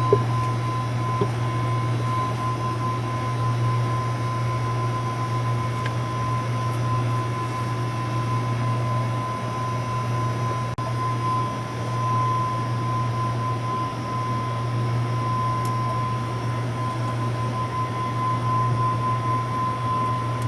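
Steady machine hum with a constant thin high whine above it, and a few faint ticks.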